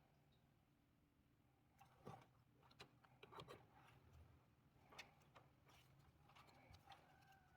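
Near silence with a faint hum, broken by a few faint clicks and taps, about five spread over several seconds.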